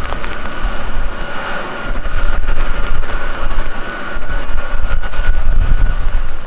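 Boeing C-17A Globemaster III's four turbofan engines running at taxi power: a steady whine over a deep, unsteady rumble that grows louder about two seconds in.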